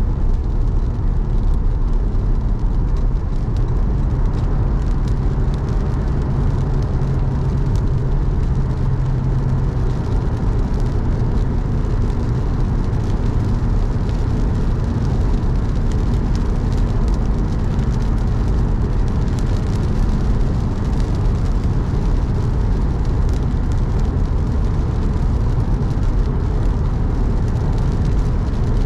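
Car driving on a wet road in the rain: a steady, loud low rumble of engine and tyre noise, with faint scattered ticks above it.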